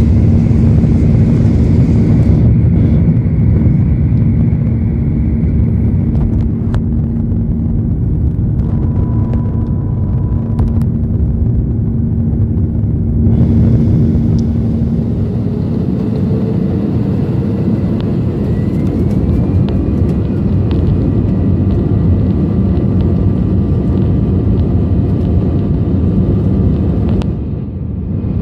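Airbus A320 turbofan engines and airflow heard from inside the passenger cabin during takeoff and climb: a loud, steady low rumble with a held hum. The sound changes abruptly twice and dips briefly near the end where the recording cuts between flights.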